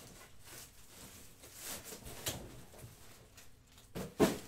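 Scattered handling noises from someone working at a desk: a few soft knocks, then two knocks close together near the end, the second much louder, like something set or bumped down.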